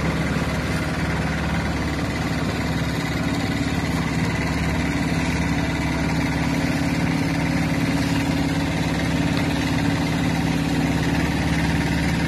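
Small river tour boat's motor running steadily while the boat cruises along, a constant even engine drone.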